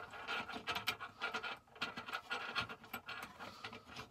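A hand fumbling a mounting bolt into its threaded hole deep in a truck's centre console: scratching and rubbing with many small, irregular clicks.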